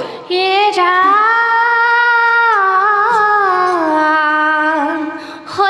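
Girls' voices singing a dihanam, an Assamese devotional chant, unaccompanied: one long drawn-out note that steps down to a lower pitch about halfway through and fades away near the end.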